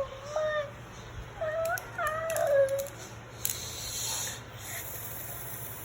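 A high voice making short wordless gliding sounds of amazement, then a brief rustle, likely of packaging, a little past the middle.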